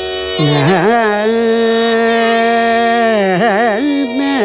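Carnatic classical music in raga Bilahari, a female voice singing one long held note and then quick oscillating gamaka ornaments over a steady drone.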